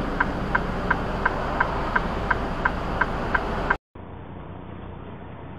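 Hazard-light flasher in a stopped truck's cab ticking evenly, about three times a second, over a low engine idle rumble. A bit under four seconds in it cuts off, and a quieter steady road and engine noise from a moving truck follows.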